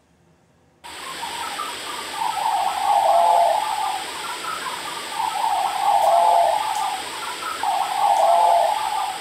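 Outdoor phone recording played back: a steady rushing hiss that starts abruptly about a second in and swells three times, about two and a half seconds apart.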